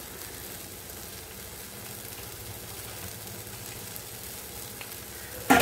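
Grated raw mango cooking in an uncovered kadai over a gas flame, giving a steady low sizzle. Near the end there is a single sharp knock.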